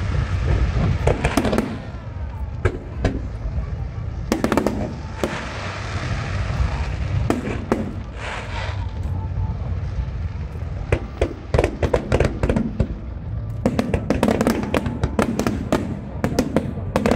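Aerial fireworks display: shells bursting with booms and sharp reports, with dense clusters of crackling a few times, over a continuous low rumble of the show.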